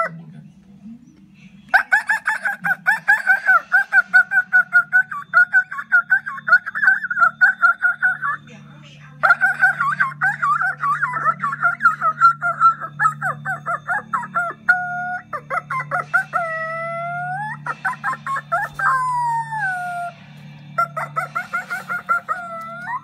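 Chicken calls: long runs of rapid, pitched clucking and cackling, broken by a short pause, with a few longer calls that bend up and then fall away in pitch near the end.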